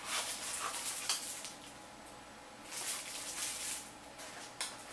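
Packaging being handled: a small cardboard box opened and plastic wrap crinkling and rustling, with a quieter pause partway through and a short sharp click near the end.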